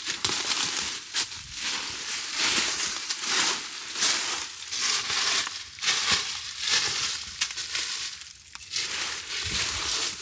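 Irregular crunching and rustling close to the microphone, from dry leaf litter and a camouflage jacket moving against the handheld camera.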